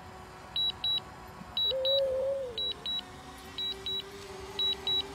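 Short high-pitched beeps in pairs, about one pair a second, from the DJI Mavic Air's remote controller, warning that the drone is returning home and landing. A brief wavering tone sounds about two seconds in.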